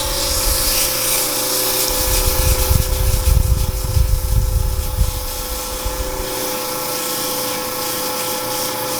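Wood lathe running with a steady motor hum while a turning tool cuts the spinning cedar blank, a continuous hissing scrape. A heavier low rumble comes in between about two and six seconds in, and the cutting hiss stops just before the end while the lathe keeps running.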